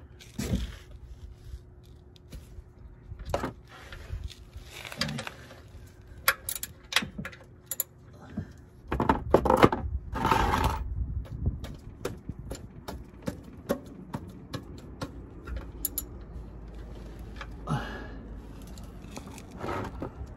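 Metal tool clicks and scrapes as the oil drain plug is unscrewed by hand from the oil pan with a socket. There are scattered sharp clicks, and a few louder scraping, rustling noises about nine to eleven seconds in.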